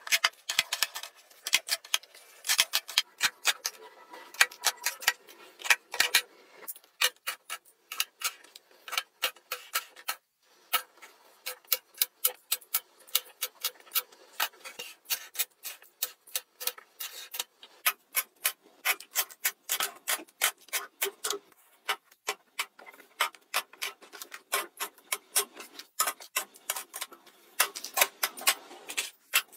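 Makeup palettes and compacts clicking and tapping against a clear acrylic organizer as they are set into its slots: quick sharp clacks, several a second, with a brief pause about ten seconds in.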